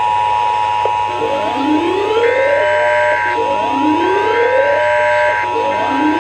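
An Emergency Broadcast System-style two-tone attention signal: two steady tones sounding together just under 1 kHz. Layered over it are other alert sounds: a siren-like sweep that rises and then holds, repeating about every two seconds, and a higher tone that switches on and off, as several stations' alerts overlap.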